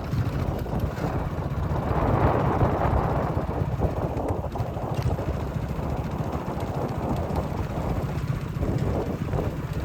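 Wind buffeting the microphone outdoors: a steady low rumble and rush with no clear engine tone.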